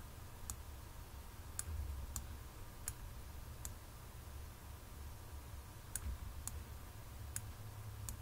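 Computer mouse clicking: about nine short, sharp clicks at irregular intervals, with a gap of about two seconds in the middle, over a low steady hum.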